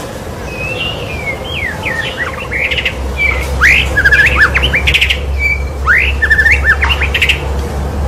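White-rumped shama (murai batu) singing a varied run of phrases: clear whistled glides rising and falling, slurred notes and quick rattling trills. A low steady rumble sits underneath, growing stronger about three seconds in.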